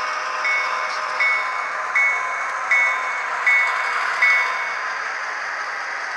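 HO-scale EMD GP38 model locomotives with Soundtraxx Tsunami sound decoders, their small speakers playing a diesel engine sound with a locomotive bell ringing about once every three-quarters of a second. The bell stops about two-thirds of the way through while the engine sound goes on.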